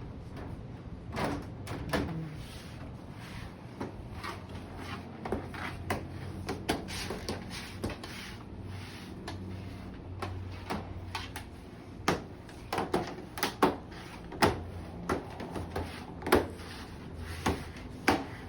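Irregular clicks and knocks, as of objects being handled and set down, over a steady low hum. The knocks come thicker and louder in the last third.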